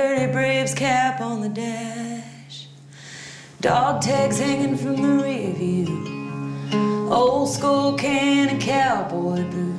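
A woman singing to her own strummed acoustic guitar. The music softens to a lull about two and a half seconds in, then comes back louder about a second later.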